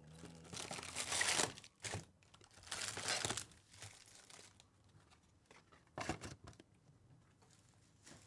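Cardboard box and foil-wrapped trading-card packs being handled as the packs are pulled out of the box and stacked. There are two loud crinkling, tearing rustles about a second and three seconds in, a sharp tap near two seconds, and a shorter rustle about six seconds in.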